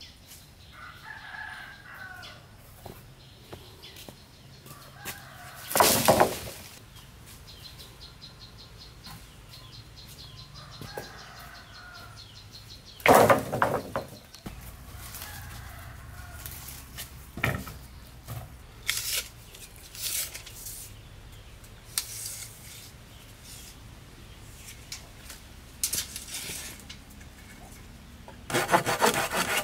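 Outdoor building work with no talk: a few loud thumps and smaller knocks, with faint bird calls in between. Near the end a hand saw starts cutting wood in a steady, rhythmic rasp.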